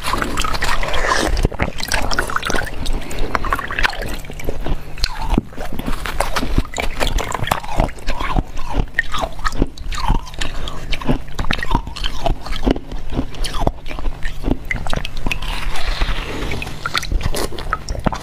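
A chunk of ice being bitten and crunched in the mouth, close to a clip-on microphone: a rapid, irregular run of sharp cracks and crackles.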